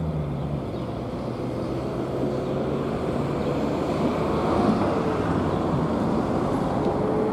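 Street traffic noise with a motor vehicle passing by, swelling to its loudest a little past the middle and easing off again.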